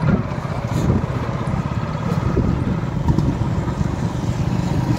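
Motorcycle engine running under way with a rapid, even firing pulse, its pitch rising and falling a few times with the throttle.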